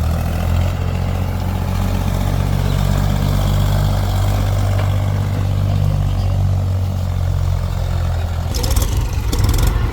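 Diesel engine of a backhoe running steadily. Near the end its note changes and a rattling noise comes in.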